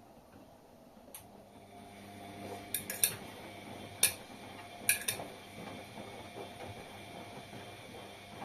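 Washing machine starting to run: a steady motor hum builds from about a second and a half in, with a few sharp clinks and knocks between about three and five seconds in.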